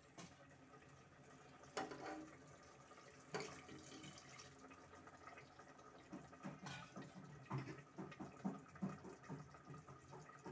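Faint sounds of a steel ladle stirring thin, watery curry in an aluminium pressure cooker: liquid moving, with a couple of light knocks of the ladle against the pot.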